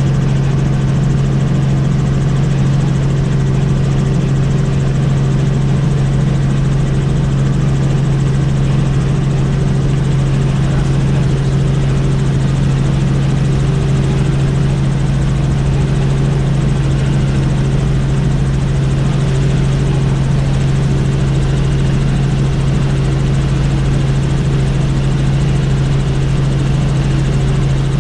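Helicopter in flight: a loud, steady drone of engine and rotors with a strong low hum that holds an even pitch throughout.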